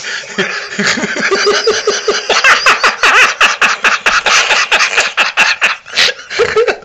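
People laughing hard and breathlessly, a fast run of loud, breathy laughs with no pause.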